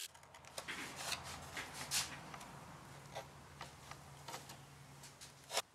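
Thin plywood servo mount being pushed and wiggled into a fibreglass pod for a snug test fit: faint scattered clicks and scraping of wood against fibreglass, over a faint low hum.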